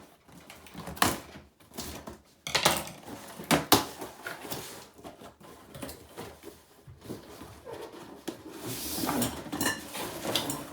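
Animatronic prop parts being handled and pulled from their box: irregular knocks and metallic clinks, likely the metal support poles, with packaging rustling near the end.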